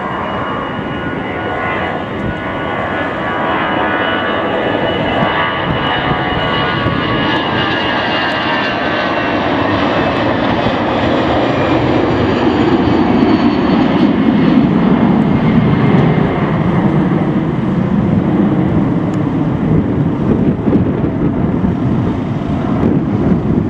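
Airbus A320-214's twin CFM56 turbofans at takeoff thrust through the takeoff roll and climb-out. A high fan whine slides down in pitch as the jet passes. About halfway through it gives way to a deep rumble that is loudest a few seconds later.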